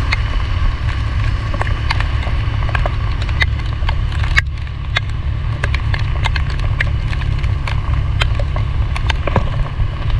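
Wind buffeting the microphone with a heavy, steady low rumble while moving through heavy rain, with raindrops striking close to the microphone as sharp, irregular ticks.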